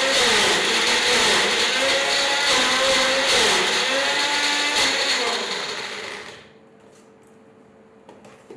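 Electric mixer grinder running at speed, its motor whine dipping and recovering in pitch several times. It is switched off about five seconds in and winds down over a second or so, leaving a faint hum and a few light clicks.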